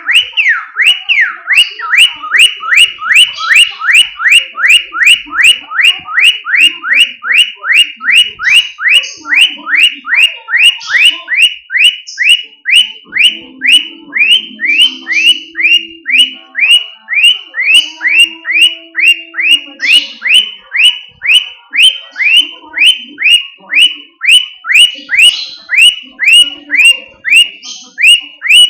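A pet bird mimicking a car alarm: a continuous run of quick whistled pitch sweeps, about two a second, which keep going without a break.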